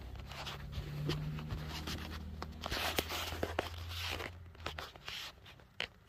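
Rustling and handling noise with scattered light clicks, over a low steady hum that fades out about four seconds in.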